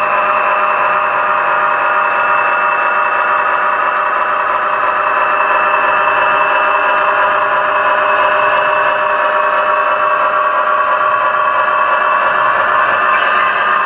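HO scale model train running past: a model diesel locomotive pulling flatcars, giving a steady mechanical hum and whir with no breaks.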